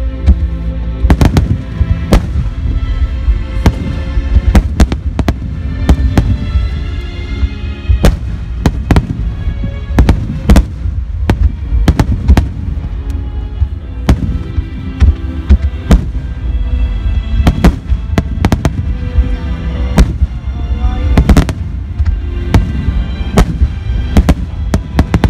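Aerial fireworks shells bursting in rapid, irregular succession, many sharp booms a few seconds, over music played through loudspeakers.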